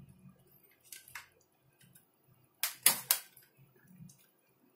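Homemade airsoft rifle body handled, with parts knocking and clicking against it: two light clicks about a second in, then a louder quick cluster of about four sharp knocks around three seconds in.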